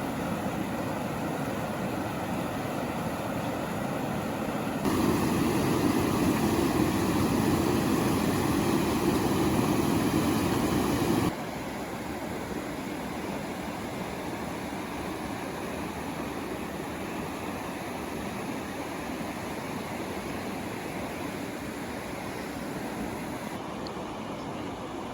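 Steady rushing of river rapids on the Deschutes River. It steps up louder about five seconds in and drops back abruptly about eleven seconds in.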